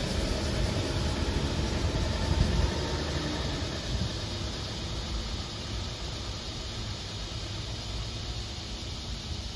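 City bus pulling away, its engine rumble fading steadily as it drives off into the distance.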